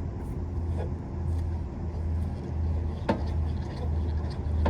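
Steady low hum of an idling vehicle engine, pulsing slightly, with a few sharp clicks: one about a second in and a louder one about three seconds in.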